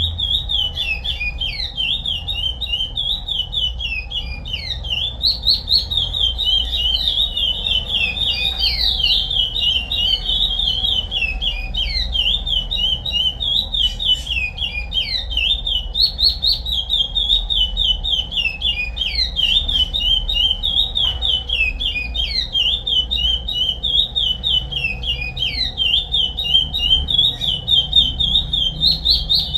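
A curió (chestnut-bellied seed finch) singing the Paracambi song type: a rapid, unbroken run of high notes, many slurring downward, over a steady low rumble.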